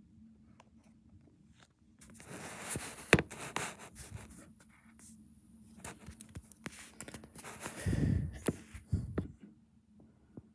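Rustling and scraping handling noise with many sharp clicks, starting about two seconds in and fading out a little after nine seconds. A low thump comes about eight seconds in.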